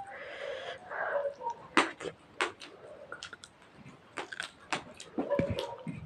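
Close-miked eating by hand: irregular wet clicks and smacks of chewing and lips, scattered through, with a short rustling hiss near the start.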